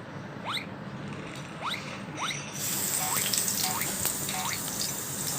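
Fennel seeds frying in hot oil in a kadai: a few short rising chirps at first, then a steady sizzle from about halfway in.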